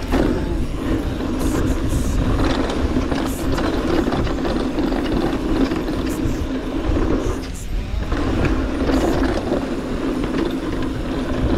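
Mountain bike rear freehub buzzing as the rider coasts downhill, a steady ratcheting hum from the hub pawls that breaks off briefly about three quarters of the way through, then resumes. Under it, the rumble of the tyres on a rough trail, with scattered rattles and clicks from the bike.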